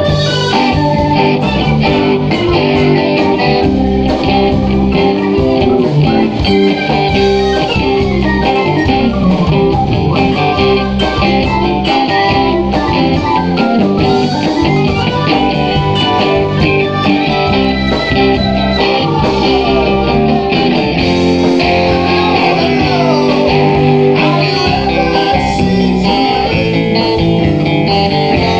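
A live rock band playing an instrumental break with no singing: electric guitar lead lines with bent notes over drums and keyboard.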